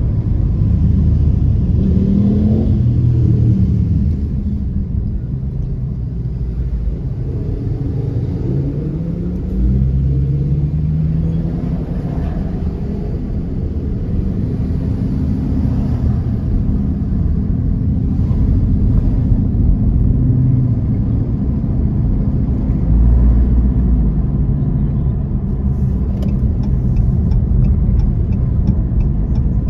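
Car being driven on city streets, heard from inside the cabin: a steady low rumble of engine and road, with the engine note rising and falling several times as the car speeds up and slows. A run of light, quick ticks comes near the end.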